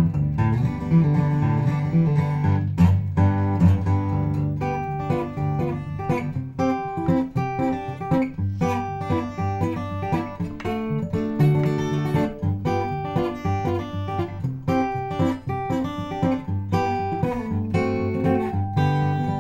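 Solo acoustic guitar played fingerstyle: a steady bass line under quick plucked melody notes, the picking growing busier from about four seconds in.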